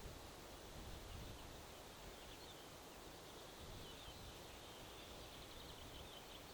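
Faint wind rumbling and gusting against the microphone, with distant small birds chirping thinly, a quick run of chirps near the end.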